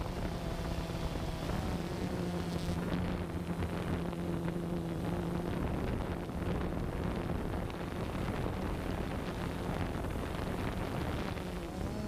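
Quadcopter drone's motors and propellers humming steadily, heard through its own onboard camera, with a slight waver in pitch and wind buffeting the microphone.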